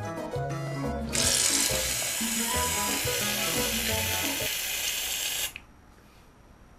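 Aerosol shaving-foam can spraying with a steady hiss from about a second in, cutting off suddenly near the end, over background music with a bass line that also stops there.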